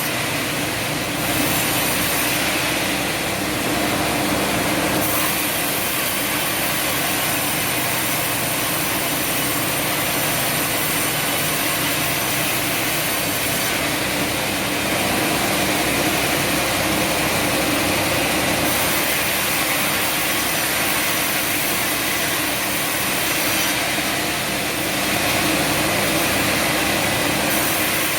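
Sawmill machinery running: a steady engine-driven saw noise that swells a little for a few seconds at a time, three times.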